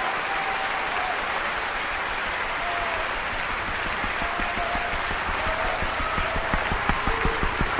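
Helicopter approaching: a steady rushing hiss with a regular rotor beat, about five beats a second, that comes in about halfway through and grows louder.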